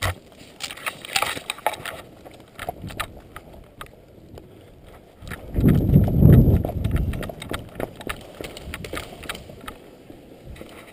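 Footsteps of a person moving quickly, first through brush and leaf litter, then on tarmac and concrete, as a run of uneven clicks and knocks. A loud low rumble on the microphone lasts about a second and a half midway.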